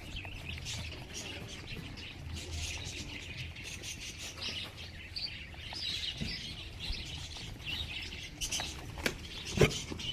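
Many small birds chirping in a continuous chorus of short, high calls. A few sharp knocks come near the end, the loudest about nine and a half seconds in.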